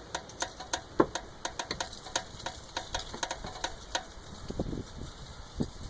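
Car jack letting the car down, a rapid run of regular mechanical clicks, about six a second, that slows and fades out about four seconds in, followed by a few soft low knocks.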